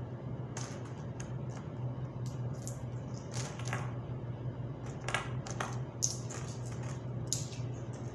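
Metal coins clinking and clicking as they are handled and stacked by hand on a table: a string of irregular sharp clinks, a few ringing briefly.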